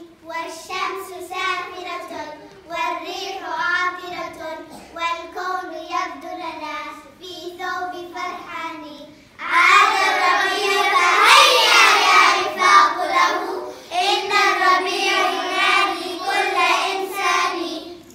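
A group of young children singing a song together in unison, clearly louder from about halfway through.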